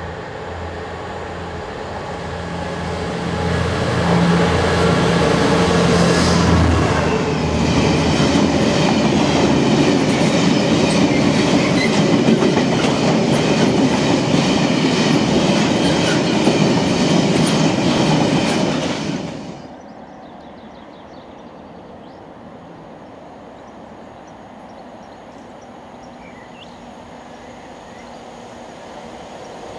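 Diesel freight locomotive passing close by, its engine note strongest in the first few seconds, then a long string of cement tank wagons rolling past with a steady rhythmic clatter of wheels over rail joints. The sound cuts off abruptly about two-thirds of the way through, leaving a much quieter rumble of another approaching train that grows near the end.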